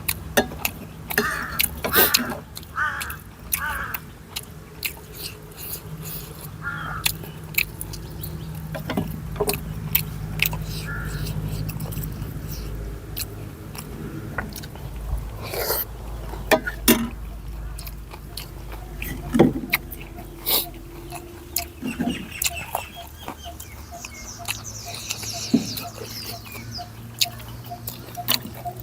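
A person chewing and eating a bowl of noodle soup, with many short clicks and mouth noises and a low steady hum underneath.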